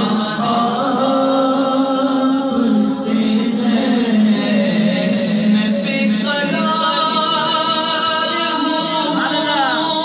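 Male voice singing a naat, an Urdu devotional poem praising the Prophet, in long held, ornamented phrases without instruments.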